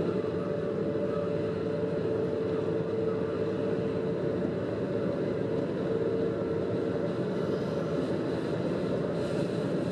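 Diesel railcar running at steady speed, heard from the driver's cab: an even engine and rolling noise with a steady whine over it.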